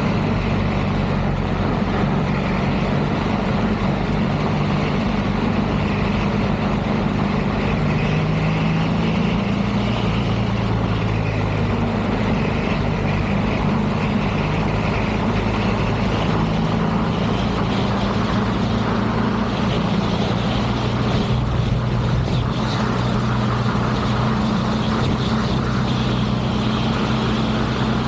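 BMW R1300GS Adventure's boxer-twin engine running under way, its pitch rising and falling with throttle and speed, over steady wind rush. A higher hiss joins about two-thirds of the way through.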